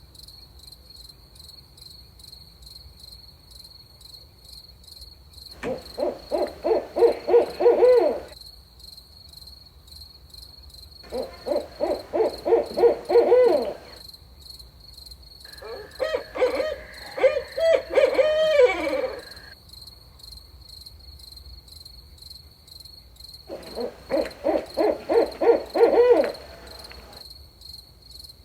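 Barred owl hooting in four bouts of rhythmic hoots, each lasting a few seconds. The third bout is longer, with wavering, falling notes. A steady high cricket trill runs underneath.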